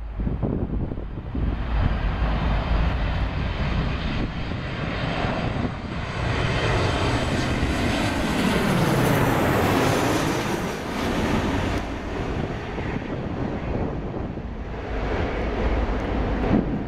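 Twin-engine jet airliner on landing approach passing low overhead. The engine noise builds to its loudest about halfway through, then falls away with a drop in pitch as the aircraft passes.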